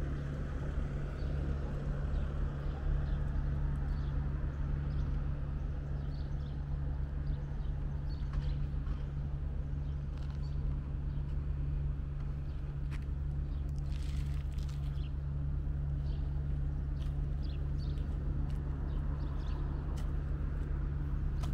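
Walking ambience: footsteps on stone paving over a steady low rumble, with scattered short high chirps and ticks.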